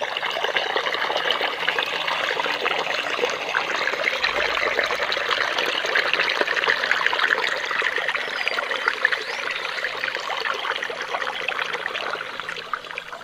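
Water flowing and splashing loudly and close to the microphone, as at a stream. It dies away near the end.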